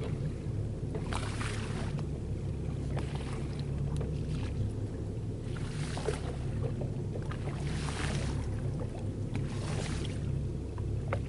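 Boat engine running with a steady low hum, with brief rushing noises every couple of seconds.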